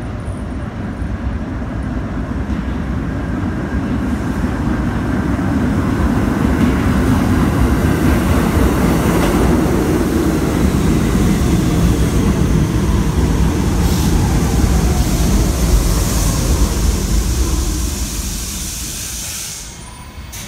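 R68-series subway train pulling into a station: the rumble of its wheels on the rails grows louder as it approaches and stays loud as the cars run past. A faint whine falls in pitch as it slows, and the sound drops away as the train stops near the end.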